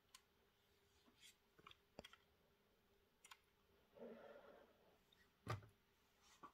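Faint handling noise from a small model semi-trailer and its parts: scattered light clicks, a brief rustle about four seconds in, and one sharper click about five and a half seconds in.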